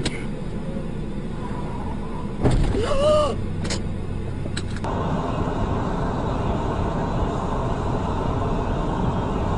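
Car collision heard from inside a dashcam car: a sudden loud impact about two and a half seconds in, followed by a brief rising-and-falling shout and two sharp knocks. After that comes steady engine and road noise.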